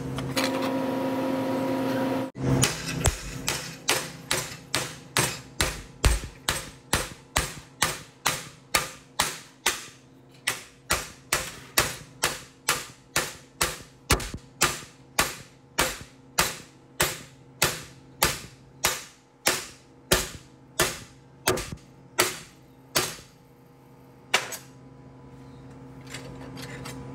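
Hammer blows on a laser-welded stainless steel piece, testing whether the weld holds. The blows come about two a second, each a sharp metallic hit with a short ring, for some twenty seconds, and a last blow follows a short pause.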